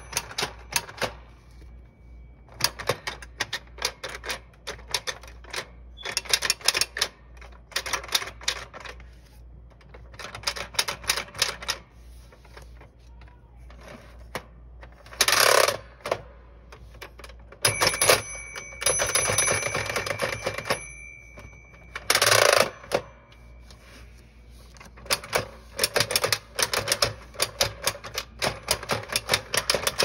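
Keys of a 1977 Tomy's Tutor Typer toy typewriter being pressed, plastic clacking in quick runs of several strokes with short pauses between. About halfway through come a few longer, louder mechanical sounds from the word drum at the top of the toy, one of them lasting about three seconds.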